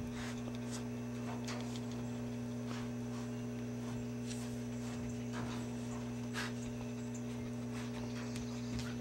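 Faint, scattered clicks and scuffs of a grizzly bear cub and a small dog scuffling at the wire mesh of a cage, over a steady low hum.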